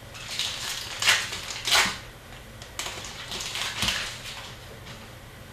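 Trading cards being flipped, slid over one another and laid on a playmat by hand: a run of short papery swishes and flicks, the loudest about one and two seconds in.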